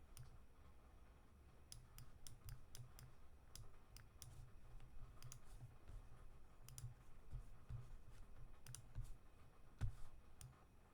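Faint, irregular clicking at a computer, some twenty sharp clicks spread unevenly, over a low hum.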